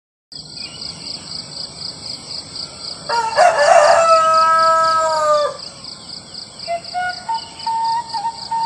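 A rooster crows once, about three seconds in, a single crow lasting about two and a half seconds, over a steady, rapidly pulsing high trill of crickets. A held, wavering tone comes in near the end.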